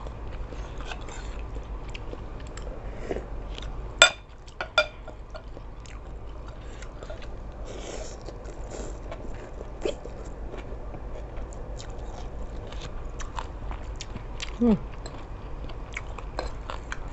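Close-up eating sounds of seafood sukiyaki with shrimp and squid: chewing and biting with many small wet mouth clicks. Two loud sharp clicks come about four seconds in, and a short falling sound near the end.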